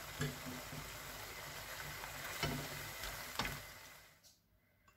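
Instant noodles with egg and vegetables sizzling in a wok on a gas hob, with a few short knocks of a wooden spatula against the pan. The sizzle drops away about four seconds in.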